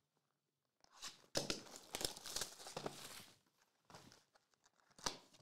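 Plastic shrink wrap on a trading-card box being slit with a box cutter and torn off, crackling and crinkling for about two seconds from a second in, then a few shorter crinkles near the end.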